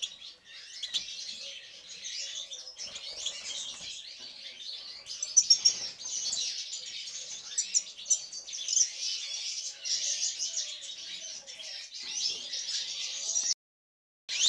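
European goldfinch singing a fast, continuous twittering song of rapid chirps and trills, which cuts off abruptly near the end.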